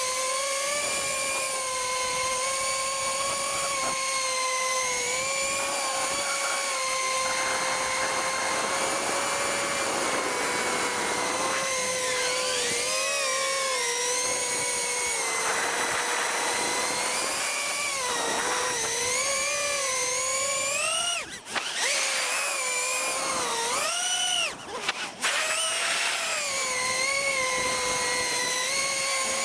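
Motors of a small FPV quadcopter whining in flight, heard from the camera on board, the pitch rising and falling with the throttle. Twice, about two-thirds of the way through, the whine briefly drops away as the throttle is cut, then comes back.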